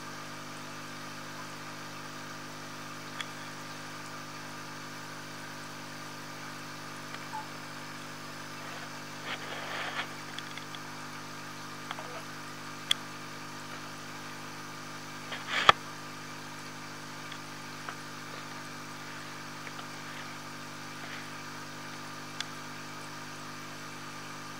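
Aquarium air compressor humming steadily, with a few sharp clicks on top, the loudest about sixteen seconds in, and a brief rustle around ten seconds in.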